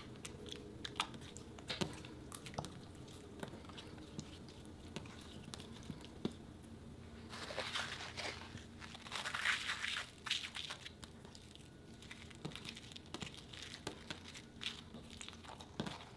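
Slime being mixed and squished: scattered sharp crackles and pops, with two louder stretches of dense crackling about eight and ten seconds in.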